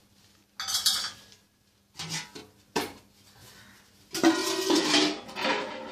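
Metal cooking pots and lids clanking and scraping as they are handled, in a few separate knocks followed by a louder, longer run of clatter with some ringing near the end.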